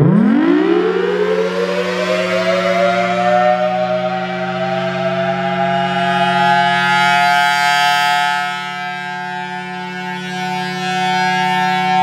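Federal Signal Thunderbolt 1000T rotating outdoor warning siren, its supercharger blower reverse-wired, sounding the Alert signal. It winds up from a low pitch over about two seconds, then holds a steady tone over a low hum. The sound grows fainter for a couple of seconds near the end as the rotating horn turns away.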